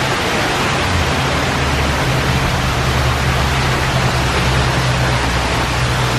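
Steady rushing noise with a low hum underneath, like a car's road and engine noise while driving.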